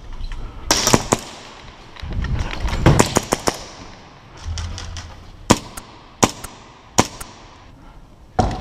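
Airsoft pistol firing: sharp pops in quick bursts of several shots, then single shots spaced under a second apart.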